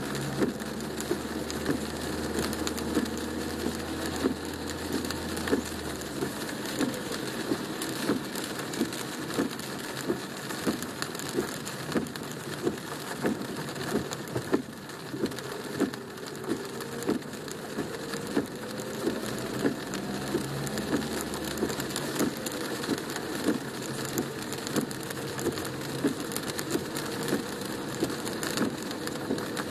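Heavy rain drumming on a car's roof and windshield, heard from inside the cabin: a steady patter with many sharper knocks of single big drops. A low hum is there for the first few seconds and again about twenty seconds in.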